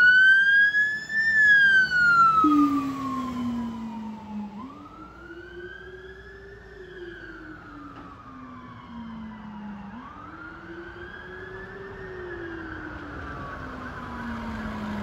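Fire engine siren on a slow wail, rising and falling about every five seconds, joined about two and a half seconds in by the deep howler tone that follows the same rise and fall. Loud at first, then fading as the appliance drives away.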